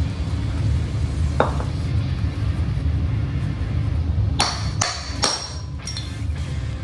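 Hammer blows on steel transmission parts: one ringing ping about a second and a half in, then four sharp metallic clanks in quick succession near the end, each leaving a ringing tone. They are blows struck to knock a stuck piece loose.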